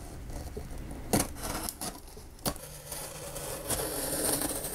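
Small knife slitting packing tape along the seam of a cardboard box: a few sharp clicks, then a scratchy rasp of blade through tape and cardboard that grows louder in the second half.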